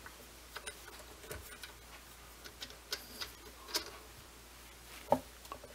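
Scattered light clicks and ticks as the drive belt of a small Cowells 90ME lathe is worked by hand onto a different pulley step, with a sharper knock about five seconds in.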